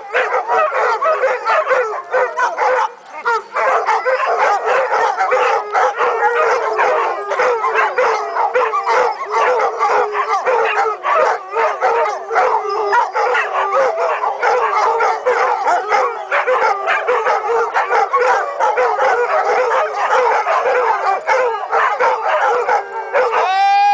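A large pack of dogs howling together in a continuous chorus of many overlapping, wavering howls, with yips and barks mixed in.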